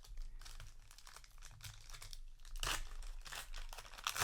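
Foil booster pack wrapper crinkling and rustling as it is handled, with a louder crackle about two and a half seconds in and again near the end.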